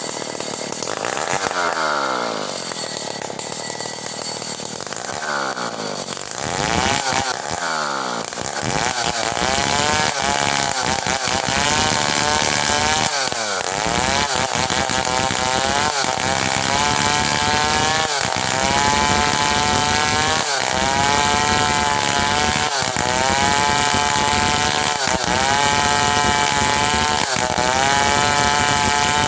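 Stihl 070 two-stroke chainsaw sawing hard merbau wood. The engine rises and falls a couple of times, then runs loud under load in the cut from about six seconds in, its note wavering and dipping briefly about every two seconds.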